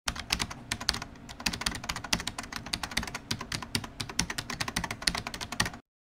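Rapid, irregular keyboard-typing clicks, a typing sound effect, that stop abruptly near the end.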